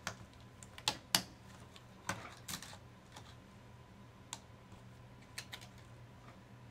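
Sharp plastic clicks and rattles of an HP G6 laptop keyboard being pried free of its retaining latches and handled: several clicks in the first three seconds, then a few scattered ones as it is flipped over and lifted out.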